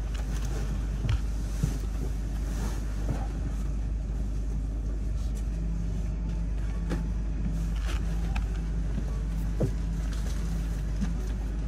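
A bus running, heard from inside the cabin: a steady low rumble with scattered light rattles and clicks, and a faint on-and-off hum about halfway through.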